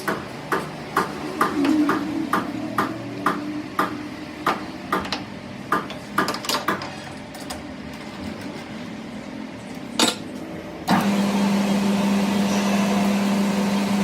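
Hammer blows on metal, about two a second, then a pause and one harder blow. About eleven seconds in, a motor-driven workshop machine starts and runs with a steady hum.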